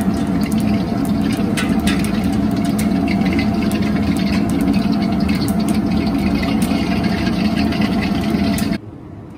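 Loud, steady roar of a gas wok burner heating ghee and oil in a steel wok, with scattered light crackles from the hot fat. The roar cuts off suddenly near the end.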